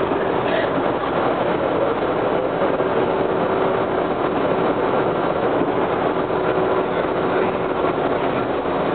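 Steady interior running noise of a WMATA Breda 4000-series Metrorail car in motion: an even rumble and rush of wheels on rail and of the car's Westinghouse DC traction drive. A faint steady hum sits under it through the middle few seconds.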